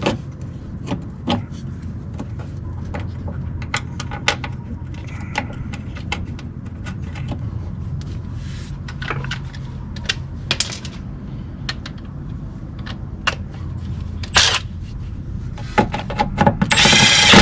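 Hand tools and metal parts clicking, clinking and tapping during reassembly work on a car's front suspension, over a steady low hum. Near the end a loud whirring burst lasting about a second.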